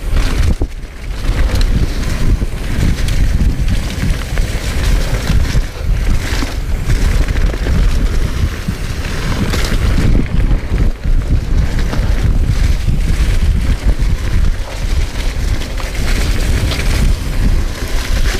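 Mountain bike riding fast down a dirt trail covered in fallen leaves: wind buffeting the microphone, tyres rolling over the dirt and leaves, and the bike knocking and rattling over bumps.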